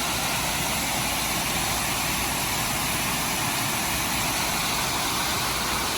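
Floodwater pouring over a lake spillway: a steady, unbroken rush of water.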